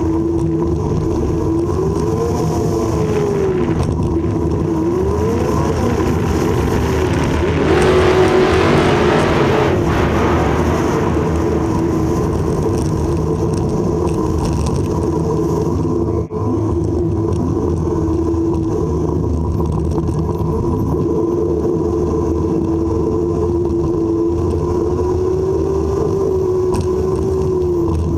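Car engine running as the car drives, its pitch rising and falling in slow swells as it speeds up and eases off. About eight seconds in comes a louder rush lasting a couple of seconds.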